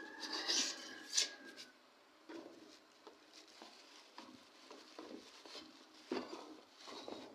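Handling noises from unpacking a Bluetooth speaker: scattered taps, knocks and rubbing. The busiest stretch is in the first second and a half, where a faint thin tone is also heard.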